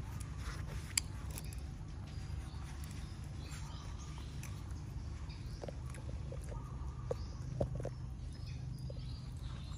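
Steady low outdoor rumble with a sharp click about a second in and a few short, high chirps from a bird or small animal in the second half.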